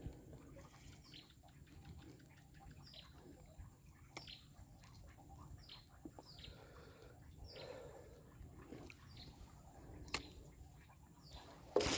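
Faint bird calls: a series of short, high notes, each falling in pitch, roughly once a second, with a few faint clicks between them.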